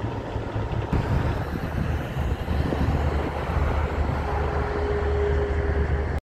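Diesel tractor-trailer engine and tyre noise as a semi-truck drives past, with a steady low rumble and a faint steady whine late on; the sound cuts off abruptly near the end.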